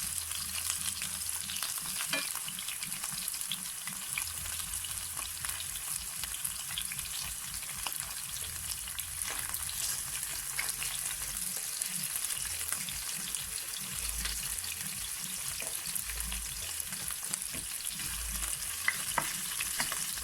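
Flour-coated chicken pieces shallow-frying in hot oil in a pan: a steady sizzle with frequent small crackling pops as the pieces brown.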